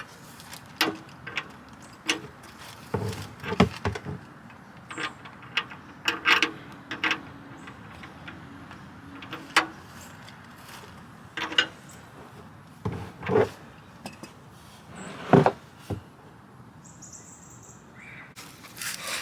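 Irregular knocks, clanks and clicks of hand tools and metal parts being worked on a car during an oil change, about fifteen of them scattered unevenly with pauses between.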